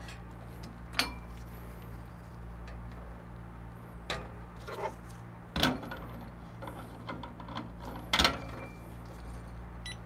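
A few short knocks and clicks of espresso gear being handled: a scale set on the drip tray, the portafilter locked into the group head, and a cup set on the scale. The two loudest knocks come past the middle and near the end, over a steady low hum.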